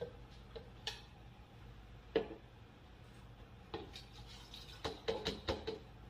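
Glass jars and kitchen containers knocking and clinking against each other and the counter as ingredients are handled: scattered light knocks, the loudest about two seconds in, and a quick run of several near the end.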